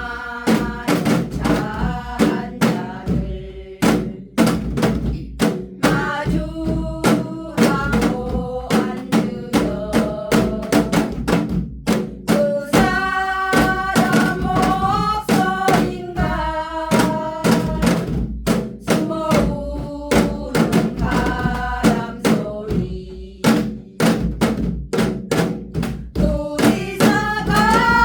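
Janggu, the Korean hourglass drum, struck in a dense, steady rhythm along with a sung song.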